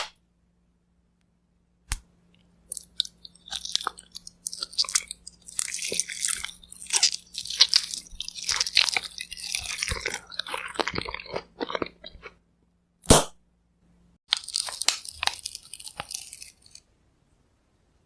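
Close-up crunching as kohakuto, crystal agar candy with a crisp sugar shell, is bitten and chewed. There is a sharp snap about two seconds in and another around thirteen seconds, each followed by a run of dense crunching chews.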